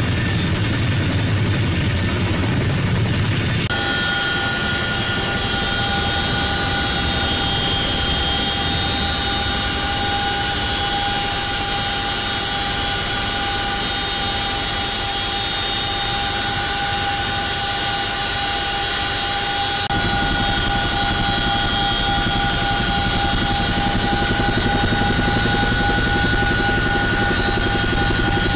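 CH-47 Chinook twin-rotor helicopter running: first its rotors and twin turboshaft engines heard from outside on the ground, then, after about four seconds, the steady din inside the cabin in flight, with a high, constant turbine whine. The low rumble grows heavier about twenty seconds in.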